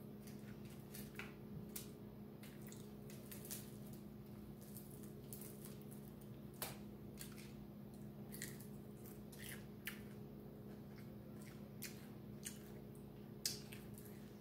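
Eating by hand: faint wet mouth smacks and chewing clicks, scattered irregularly, over a steady low hum.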